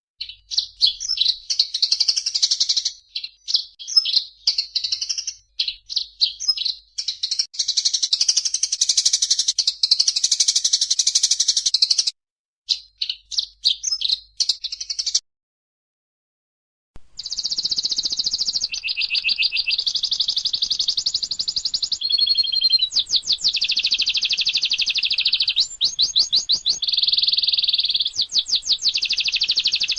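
Songbirds singing in an edited mix: high, rapid chirps and trills. Everything cuts out to silence about 15 seconds in, and about two seconds later a different, denser trilling song comes in, with short fast rattles every few seconds.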